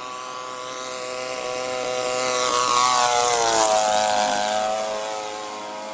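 Radio-controlled model Jodel Robin's 30cc petrol engine and propeller in a low, fast flyby. The engine note grows louder to a peak about three seconds in, drops in pitch as the plane passes, then fades.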